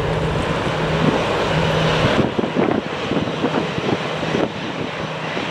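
Air Canada Rouge Airbus A321-200's two CFM International jet engines running at takeoff power as the airliner rolls down the runway and lifts off. Wind buffets the microphone from about halfway through.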